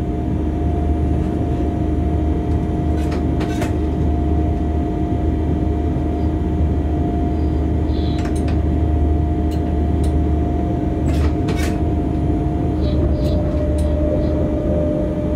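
Inside a moving locomotive's cab: a steady low rumble with a steady whine that steps down a little in pitch near the end, and a few sharp clicks now and then.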